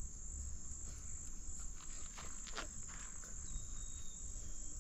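Insects chirring steadily in a high, even drone, with a few faint clicks about halfway through.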